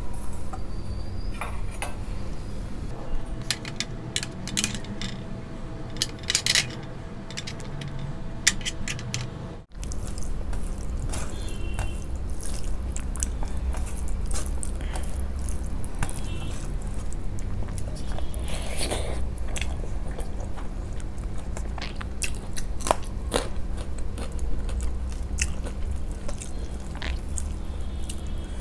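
Close-miked eating sounds: wet clicks and crackles of a bare hand mixing rice with mustard fish curry on a steel plate, and chewing, over a steady low hum. The sound cuts out for an instant about ten seconds in.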